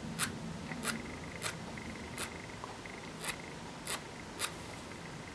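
Fine file drawn lightly across a tiny soft cast-metal N scale signal head, about seven short rasping strokes at an unhurried pace, stopping near the end.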